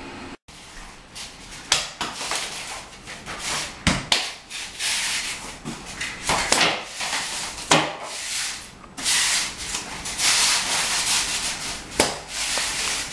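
Claw hammer striking through a piece of cardboard laid on a porcelain tile floor: sharp, irregular knocks mixed with rubbing and scraping on the tile.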